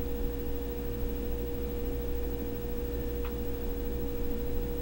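Refrigerator running in the background: a steady hum with a constant mid-pitched tone over a low rumble.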